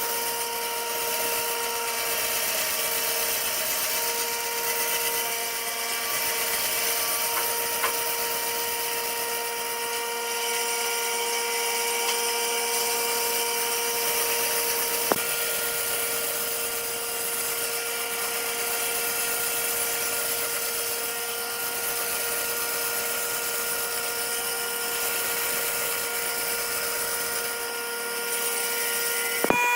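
Electric woodworking power tool running steadily, a motor whine over a high hiss. Its tones change with a click about halfway through.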